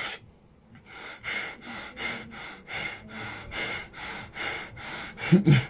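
A man breathing heavily through his nose after shouting, in even strokes about two a second, with a short low vocal sound near the end.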